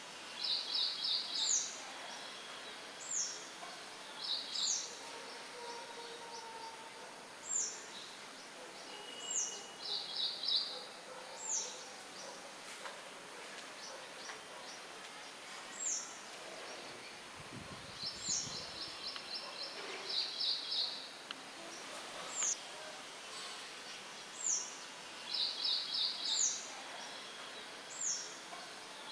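Songbirds chirping: short, high calls that slur downward, repeated every second or two, and several quick trills of rapid notes, over a steady hiss of light wind rustling leaves.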